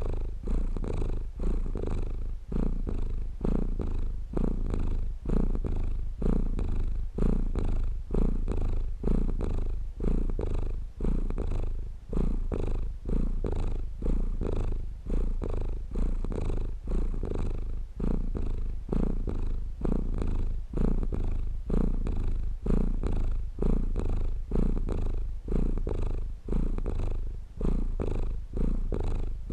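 Domestic cat purring steadily and close, the rumble swelling and easing with each breath about once a second.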